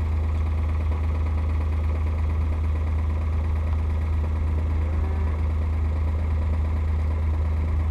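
Side-by-side utility vehicle's engine running steadily, a loud even low drone.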